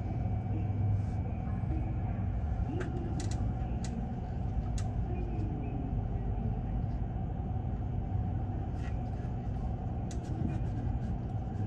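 Railway station platform ambience: a steady low rumble with a constant hum, broken by a few short sharp clicks.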